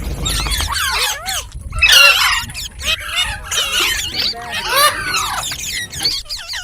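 Pet green parrot chirping and squawking: a dense run of short, quick up-and-down calls, loudest about two seconds in and again around five seconds.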